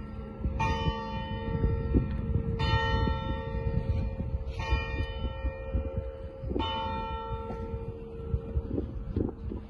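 A single tower bell striking four times, about two seconds apart. Each stroke rings on and fades before the next, over a steady low rumble.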